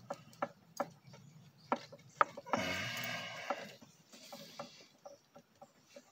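A new plastic coil-on-plug ignition coil being worked down into its spark plug well by hand: a few sharp clicks and taps, then about a second of rubbing and scraping near the middle.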